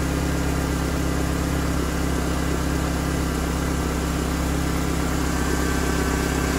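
Pickup truck engine idling steadily and smoothly. The idle is calm now that the vacuum leak behind the high, slow-to-drop idle has been repaired.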